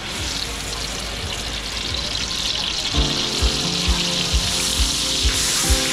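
Fish frying in hot oil, sizzling steadily. Background music with a steady beat comes in about three seconds in.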